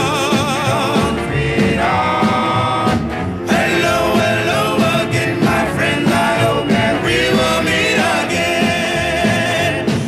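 1950s doo-wop recording: male vocal group singing in close harmony, with held, wavering notes over a band keeping a steady beat.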